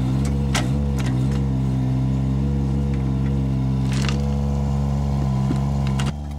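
Diesel engine of a 1.5-tonne mini digger running steadily under hydraulic load while the bucket digs soil, with a few sharp knocks and scrapes of the bucket against earth and stones. About six seconds in, the engine note suddenly gets quieter.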